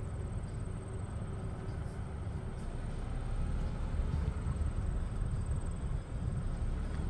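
Low, steady rumble of a garbage truck's engine as the truck drives away down the road.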